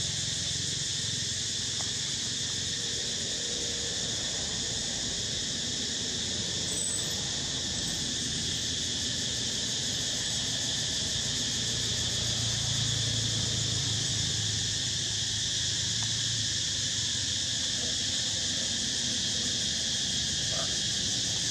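Steady chorus of insects, a high even drone, with a low rumble underneath that swells about halfway through.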